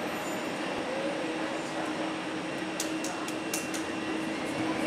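Airbus A319 Corporate Jet taxiing on its twin turbofan engines at idle thrust: a steady rushing engine noise with a low steady hum, and a few short faint ticks about three seconds in.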